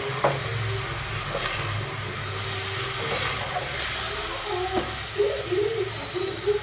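Steady hissing of cooking on the stove over a low hum, with a couple of light clicks in the first second or two.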